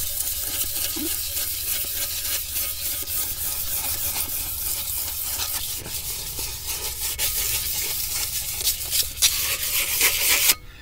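Sandpaper rubbed by hand around the inside braking surface of a truck's front brake drum: a continuous rasping scrape made of quick repeated strokes, cleaning the drum's friction surface.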